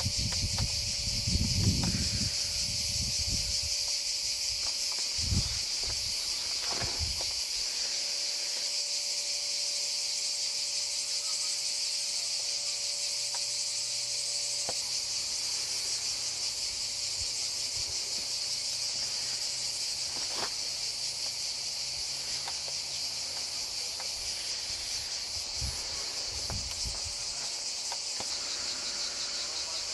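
A steady, high, dense chorus of cicadas. A few low bumps of wind or handling on the microphone come in the first few seconds and again near the end.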